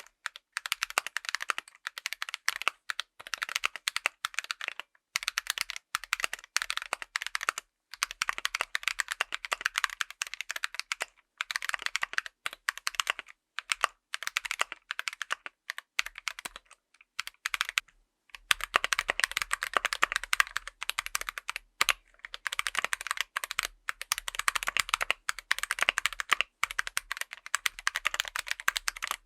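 Typing on a full mechanical keyboard with tactile switches: rapid runs of keystrokes with short pauses. About two thirds of the way through, the typing turns louder and fuller with more low end.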